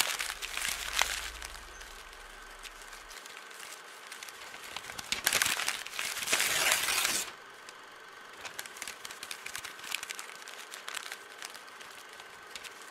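Paper crumpling and tearing sound effects: scattered light crackles, with louder rustling about five to seven seconds in.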